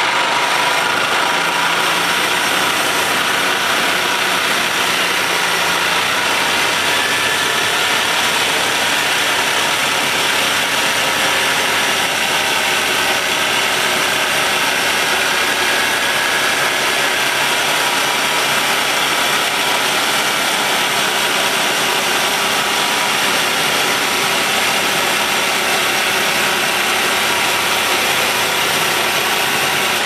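Homemade sawmill driven by an old golf cart's engine, running steadily with no change in pace.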